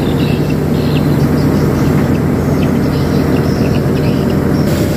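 Sumitomo S265 F2 excavator's diesel engine running steadily under load, with a high hiss starting near the end.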